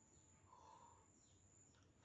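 Near silence, with faint falling bird chirps in the background.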